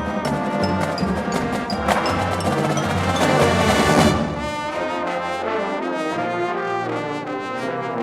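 Ensemble music led by brass, holding sustained chords that swell to their loudest about four seconds in, then ease off.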